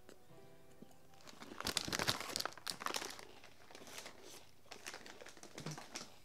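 Plastic chip bag crinkling as it is handled and set aside, densest for about a second and a half near the middle, then a few lighter rustles.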